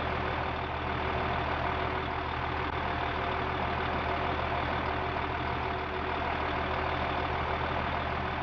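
Engine of a ploughing tractor running steadily: an even, low hum with no change in speed.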